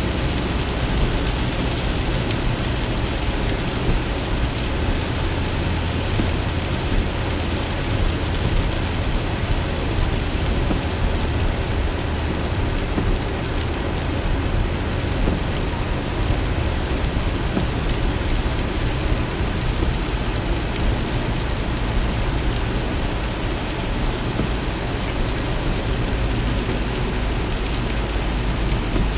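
Steady road and engine rumble inside a moving car's cabin, with rain hitting the windshield and roof.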